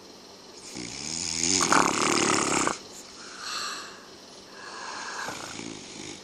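A man snoring in his sleep. About a second in comes one loud, rattling snore lasting about two seconds, followed by two softer breaths.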